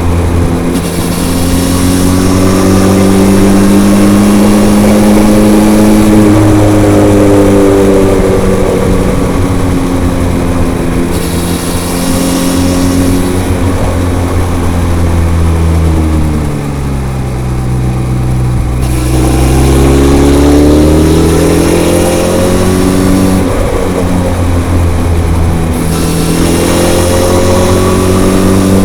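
Benelli TRK 502's parallel-twin engine through its stock, unmodified exhaust, ridden on a winding road: the engine note rises and falls with the throttle, dips to its lowest about two-thirds of the way through, then climbs again.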